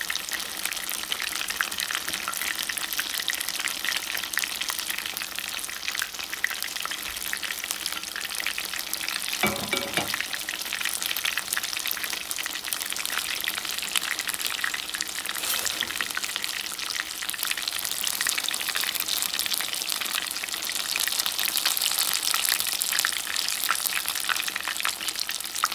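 Tilapia fillets frying in hot oil in a wok: a steady, dense crackle and sizzle of bubbling oil. The fillets are nearly cooked through.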